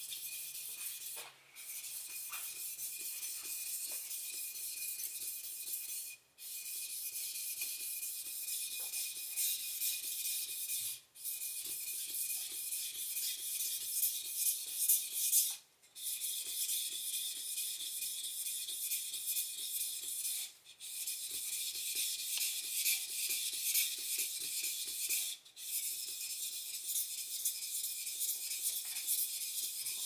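Steel kitchen knife blade rubbed back and forth on a wet whetstone: a rapid, high-pitched rasping, broken by short pauses about every five seconds.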